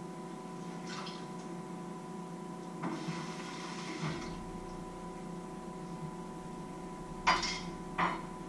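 Dishes and pots handled in a kitchen sink: a short rustle of clatter a few seconds in, then two sharp clinks near the end, over a steady hum.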